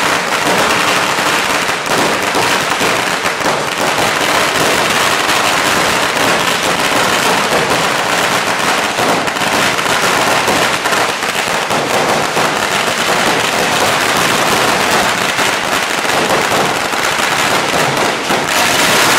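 A long chain of firecrackers going off in a continuous rapid crackle of bangs, so dense that the reports blur into one another.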